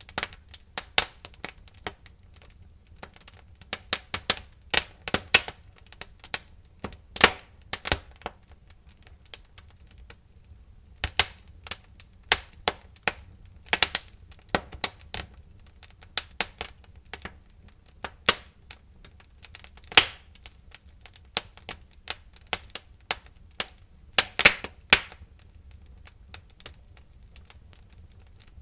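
Wood fire in a fireplace crackling, with irregular sharp pops and snaps at uneven intervals; a handful are much louder than the rest.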